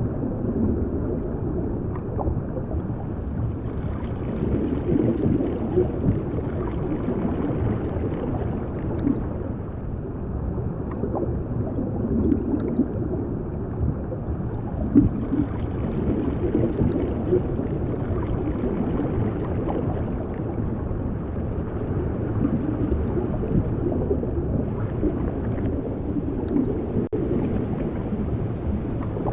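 Underwater ambience: a continuous muffled rush of water with irregular bubbling, gurgling swells.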